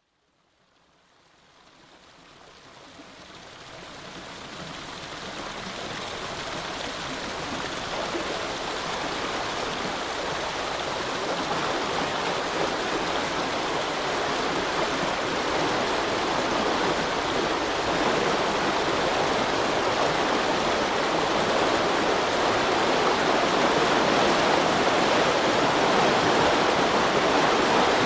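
Rushing water at a river lock, a steady roar of water pouring through. It swells up out of silence over the first few seconds and keeps growing slowly louder.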